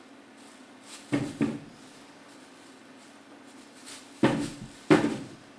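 Two pairs of sharp knocks against a tabletop, the first pair about a second in and the second about four seconds in, each dying away quickly.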